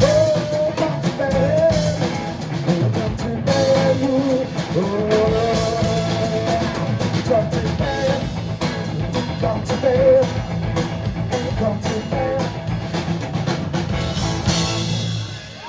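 Live band playing a rock song with drum kit, guitar and a singer; the music stops shortly before the end.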